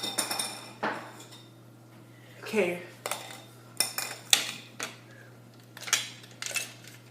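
Hard plastic parts of a Nerf gun clicking and clacking as it is taken apart, a series of sharp separate knocks at irregular intervals.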